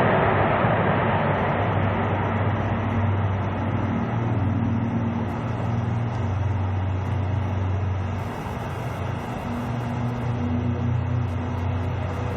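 Airbus A380's jet engines rumbling, loudest at first and easing off over the first couple of seconds, with a steady low drone underneath.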